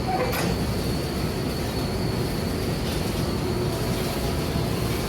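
Steady din of a coal-fired steamship's boiler room machinery running, with a faint high-pitched whine held on one note.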